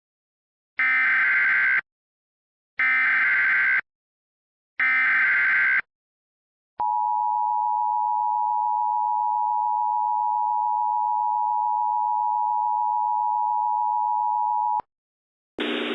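Emergency Alert System tones: three one-second bursts of screeching SAME header data, about a second apart, then the long steady two-tone attention signal for about eight seconds, cutting off sharply. Together they announce a National Weather Service tornado warning.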